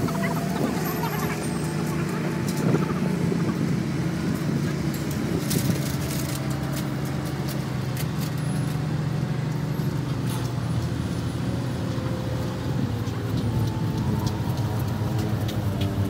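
Motor vehicle engine idling with a steady low hum, amid city street traffic.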